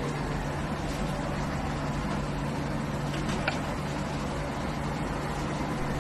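Steady background hum under an even hiss, with a single brief click about three and a half seconds in.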